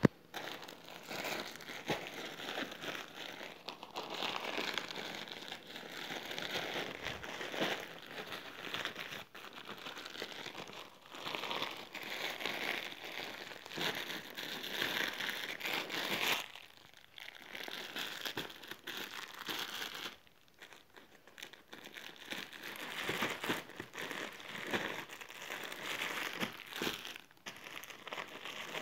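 Grey plastic courier mailer bag crinkling and rustling as it is torn open and handled, with a couple of short pauses. A brief sharp click comes right at the start. Near the end, clear plastic clothing packets crinkle.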